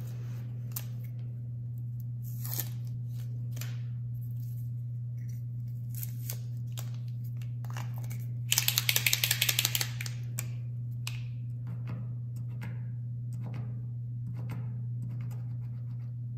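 A POSCA paint marker being shaken to mix its paint before first use: the mixing ball inside rattles rapidly for about a second and a half midway. Around it come scattered clicks and taps of the marker being handled, over a steady low hum.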